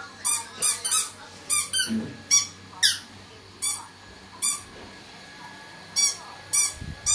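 Squeaky toy squeezed over and over: about a dozen short, high squeaks in uneven runs, with a pause of a couple of seconds near the middle.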